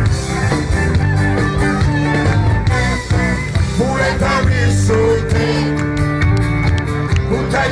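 Live band playing a song's instrumental opening at full volume with a steady beat, a voice singing over it from about halfway through.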